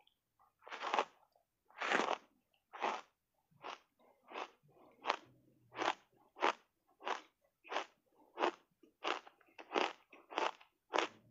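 Matcha-powder-coated block ice bitten off and chewed: two longer, louder crunches about a second and two seconds in, then steady crunching chews at about one and a half a second.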